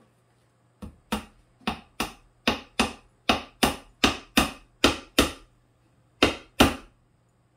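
Hammer driving a nail into a pine board: about fourteen sharp strikes, two or three a second, with a short pause before the final two blows.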